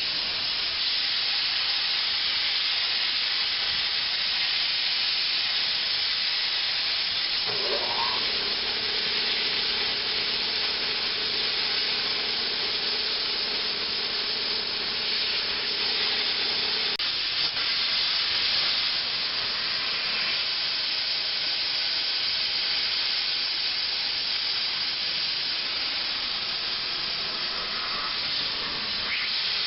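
Air plasma cutter hissing steadily as it cuts steel plate. A steady hum joins after a short rise in pitch about eight seconds in and stops with a click about halfway through.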